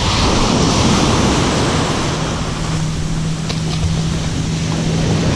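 Ocean surf washing up the beach, with foaming backwash swirling around the shoreline. A low steady hum joins about two seconds in.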